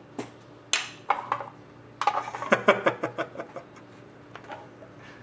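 Hard clear plastic card box and a stack of trading cards being handled: a run of sharp plastic clicks and clatter, densest between about two and three and a half seconds in.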